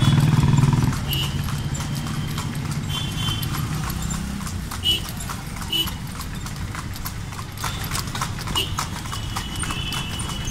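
A horse's hooves clip-clopping on an asphalt road as it pulls a two-wheeled tonga cart. A low engine hum fades out about a second in.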